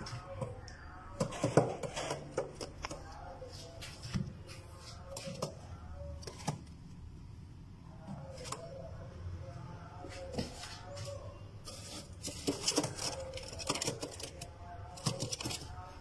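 Fancy pigeons cooing in low, wavering calls, with many sharp clicks and taps in between.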